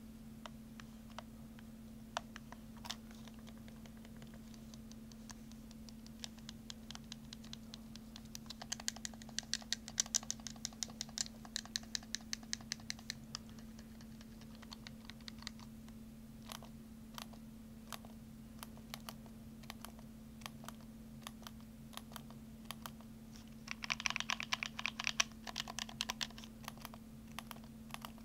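Typing on a keyboard: keys clicking in two quick, busy runs, one about a third of the way in and one near the end, with scattered single clicks between, over a steady low hum.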